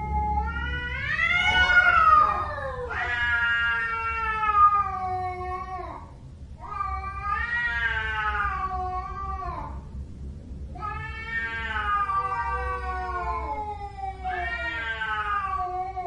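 Domestic cat howling: about five long, drawn-out yowls in a row, each roughly three seconds, wavering up and down in pitch with short breaks between them.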